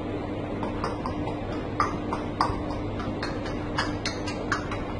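African grey parrot making a run of short, sharp clicks, about fifteen at an uneven pace over a few seconds, over a steady low hum.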